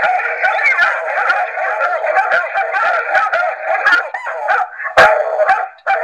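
Electronic car horn playing a recording of hound dogs barking and baying, loud and without deep bass.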